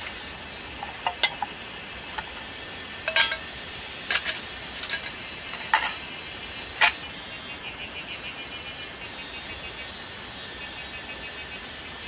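Aluminium mess tins, their lids and a wire steaming rack clinking and clacking as a Daiso mini cooking set is handled and laid out. About nine short, light knocks come over the first seven seconds, the last one the loudest, then only a steady background hiss with faint high pulsing chirps.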